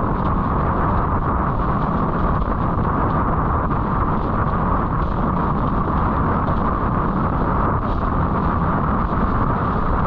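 Strong wind buffeting the microphone in a loud, steady roar, mixed with the rush of water under a windsurf board planing in high wind.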